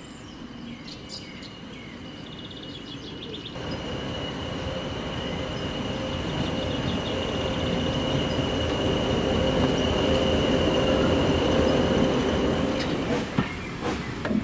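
English Electric Class 20 diesel locomotive approaching, its engine drone and a steady high whistle growing louder as it nears. Near the end the sound changes to irregular clicks and knocks.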